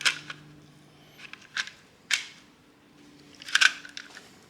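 A 3D printer hot-end cover being fitted by hand: a handful of sharp clicks and scrapes, one right at the start, two about a second and a half to two seconds in, and a quick cluster near the end. A faint steady low hum sits underneath.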